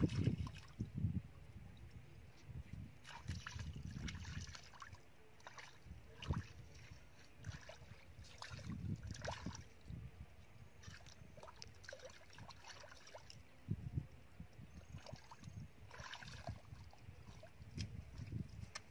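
Irregular splashing and squelching as hands grope through a shallow muddy puddle, water and wet mud sloshing in short bursts. Near the end, bare feet squelch through the mud.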